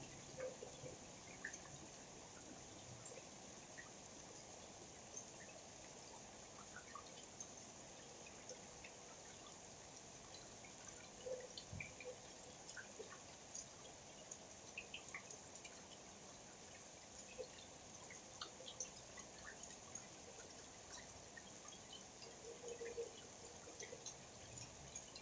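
Faint rain: a steady soft hiss with many scattered drips and ticks of drops landing at irregular times.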